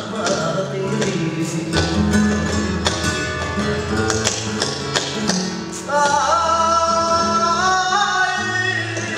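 Flamenco music with guitar strumming and sharp rhythmic accents; a singing voice comes in about six seconds in.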